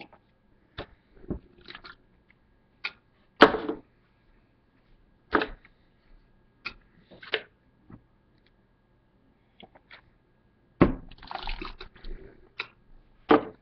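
A man drinking from a cup and clearing his mouth close to the microphone: scattered gulps, sloshing and short sharp clicks with pauses between, and a longer noisy stretch about eleven seconds in.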